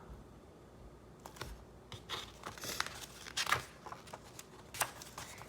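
Faint paper rustling and crinkling with a few soft clicks: picture-book pages being handled and turned.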